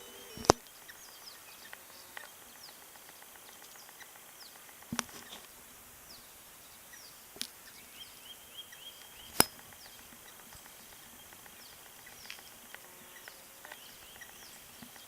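Small birds calling outdoors, a scatter of short high descending chirps, over a steady background hiss. Four sharp clicks or knocks cut in, the loudest about half a second in and about nine seconds in.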